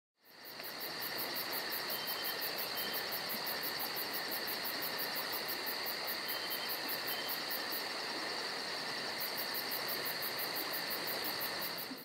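Insect chorus of crickets chirping in a steady trill, with a rapid high pulsing above it that pauses briefly after the middle. It fades in at the start and cuts off suddenly at the end.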